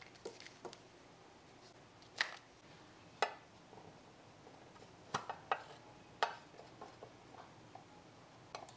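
Light, sharp clicks and taps of small plastic containers being handled: a clear plastic clamshell box and a tiny plastic cup whose snap-on lid is pulled off, with a quick cluster of clicks in the second half.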